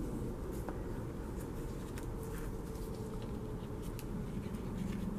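Faint scratching of a liquid glue bottle's applicator tip dragged over the back of a paper cut-out, with light paper rustles and a few small ticks, over a steady low background hum.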